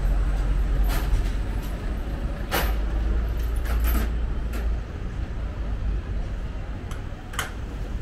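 Town street noise: a low rumble, most likely from nearby vehicle traffic, that eases off about five seconds in, with a few sharp clicks and knocks scattered through it, the loudest a little over a third of the way through.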